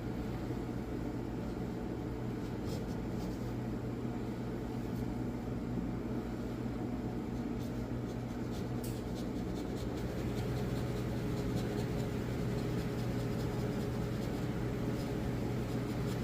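Hand chisel paring and scraping a maple honey dipper blank, a continuous scratchy shaving sound with a few small clicks, over a low steady hum.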